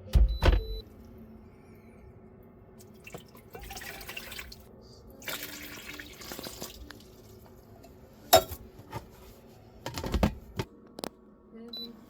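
Two short spells of running water, with sharp knocks and clinks before and after.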